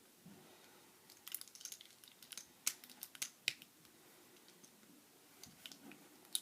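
Faint, irregular small plastic clicks and taps of Rubik's cube pieces being handled and snapped back onto the cube's core, a cluster of them after about a second and a couple more near the end.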